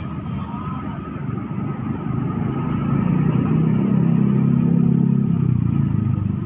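Heavy tandem-axle dump truck driving close past with its diesel engine running. The engine sound builds to its loudest about four to five seconds in, then eases, over steady road traffic noise.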